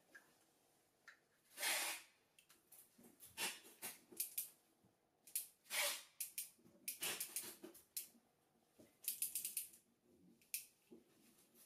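Hands turning the swivel joints of a black 360-degree rotating faucet: scattered rubbing swishes and clicks, with a quick run of clicks about nine seconds in.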